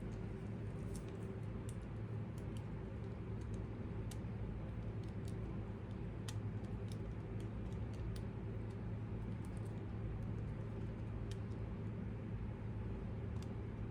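Scattered light clicks and taps of small hard parts being handled during an RC crawler transmission swap, over a steady low hum.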